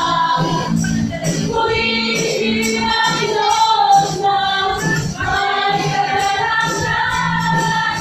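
Women singing a church praise song into microphones over amplified backing music, with a steady beat of sharp percussion ticks.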